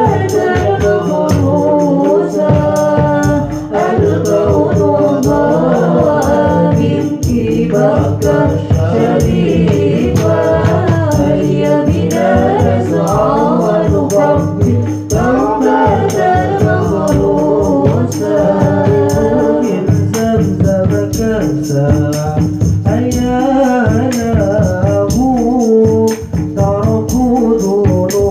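Sholawat singing with a rebana ensemble: voices singing an Arabic devotional melody over hand-played terbang frame drums, kendang and kecer cymbals in a steady rhythm.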